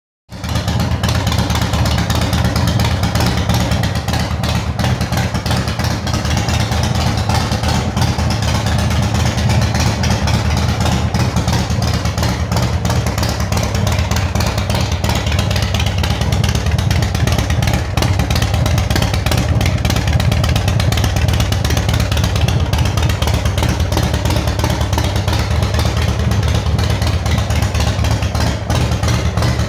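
Big Dog custom chopper's V-twin motorcycle engine idling steadily through its chrome exhaust pipes, a deep, even rumble.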